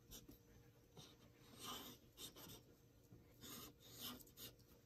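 Faint, short strokes of a felt-tip marker on paper, coming in several separate scratchy bursts as small leaf outlines are drawn.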